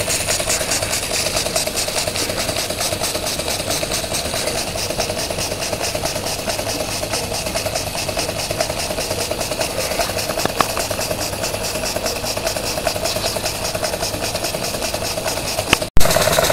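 Small model oscillating-cylinder steam engine running steadily with a rapid, even beat. The sound breaks off briefly near the end and comes back louder.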